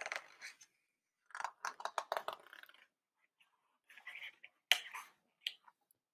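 A page of a hardcover picture book being turned and pressed flat: crisp paper rustles in three short spells, with a sharper tap near the end.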